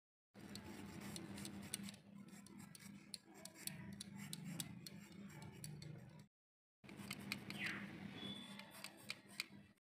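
Potato being peeled on a boti, the curved Bengali blade fixed to a low stand: faint scraping and clicking as the blade shaves off the skin, cutting out briefly about six seconds in.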